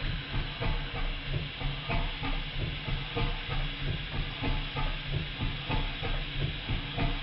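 Stuart 5A twin-cylinder steam engine running on steam, with regular exhaust beats at about three a second over a steady hiss.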